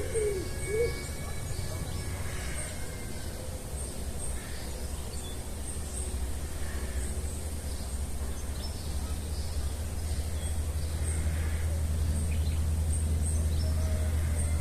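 Small birds calling in a forest, with one high chirp repeating about every second and a brief lower call at the very start, over a steady low rumble that grows louder in the second half.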